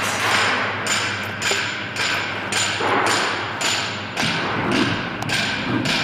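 BMG 3020 CNC router with a 3 kW water-cooled spindle running: a steady high whine under loud, evenly spaced knocks about twice a second, each dying away quickly.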